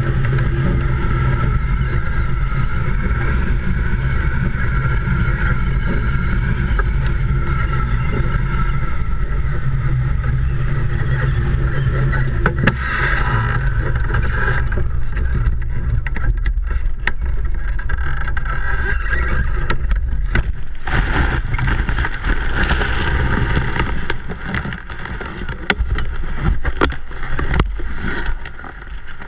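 Airflow rushing over a hang-glider-mounted camera's microphone as the glider skims low over grass, a steady low rumble with a few steady whistling tones. About twenty seconds in, the glider comes down into tall grass: brushing and clicking as grass strikes the frame, and the wind noise dies away.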